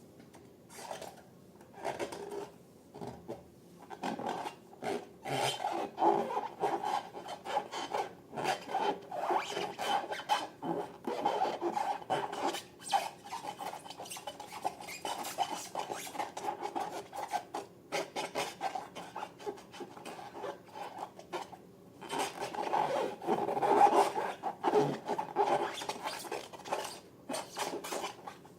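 Slime being worked by hand or stirred, giving a dense run of quick rubbing, squishing and crackling sounds, with short pauses now and then.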